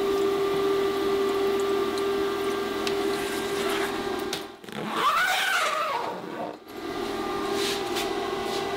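Mini-greenhouse fog generator and its ventilation fan running with a steady hum, switched on just before. About five seconds in, a brief sound rises and falls in pitch.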